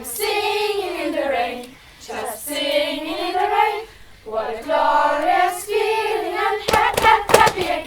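A group of children singing the chant of a campfire action song together in long, drawn-out notes. A few short, sharp sounds come near the end.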